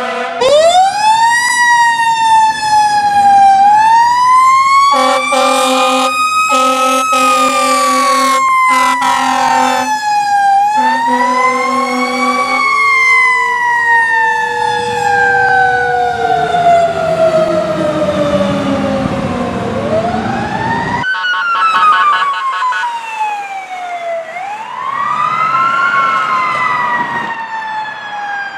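Fire engine sirens wailing in long rising and falling sweeps, with a string of horn blasts from about five to twelve seconds in. About twenty seconds in the sound changes suddenly to another siren, which falls and rises again.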